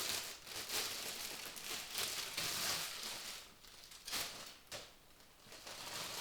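Plastic packaging and small bags of parts being rustled and crinkled by hand, with a couple of sharp knocks about four seconds in.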